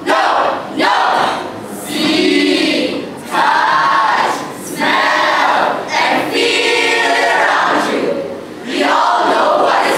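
Mixed-voice choral speaking group of about twenty students performing in unison, singing in short phrases with brief breaks.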